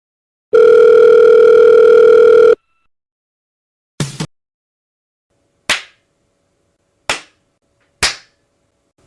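A loud, steady electronic beep tone held for about two seconds, like a dial tone or censor bleep, used as a meme sound effect. After a pause comes a short burst, then three sharp hits spaced about a second apart, each dying away quickly.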